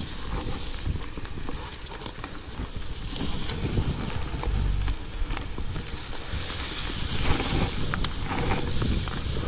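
Bicycle rolling over a rough off-road forest trail: tyre noise on dirt and gravel with irregular small rattles and knocks from the bike, and wind rumbling on the clip-on microphone.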